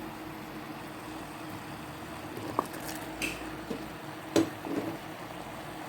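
Cooking pot being loaded with ingredients: a few soft clicks, then a sharper knock about four seconds in, probably a utensil against the pot. A steady low hum runs underneath.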